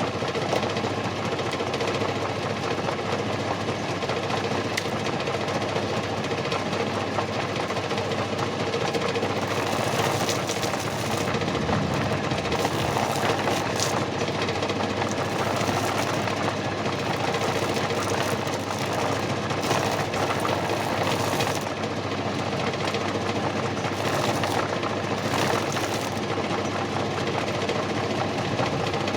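Homemade feather plucker driven by a used washing machine's motor, running steadily with a dense mechanical rattle, with a few short stretches of added high hiss through the middle.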